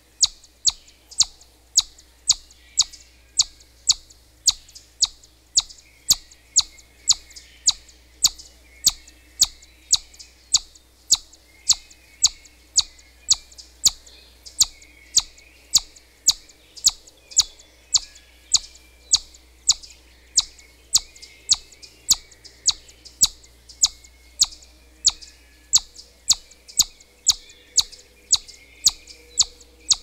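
A small squirrel's alarm call: a sharp, high chip repeated steadily about twice a second.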